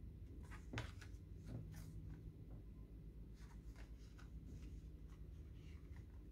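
Collage journal cards and paper tags being handled and leafed through by hand: soft, scattered paper rustles and light card taps, the sharpest about a second in, over a faint low hum.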